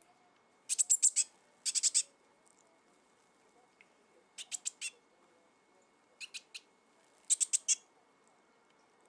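Fledgling blue tit calling in five short bursts of rapid, very high notes, three to five notes to a burst. These are begging calls, given with the beak held open toward a hand.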